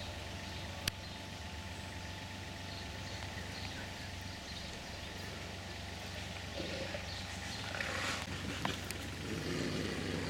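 Brown bears growling at each other in rough bursts over the last few seconds, over a steady low hum.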